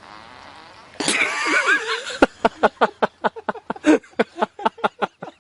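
A loud, wavering high-pitched sound starts about a second in. Then a person laughs hard in quick, even bursts, about five a second.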